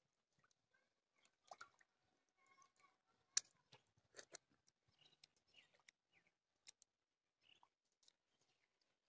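Faint sloshing and small clicks of a hand stirring water in an enamel basin, with a short sharp lip smack about three to four seconds in as the water is tasted from the fingers.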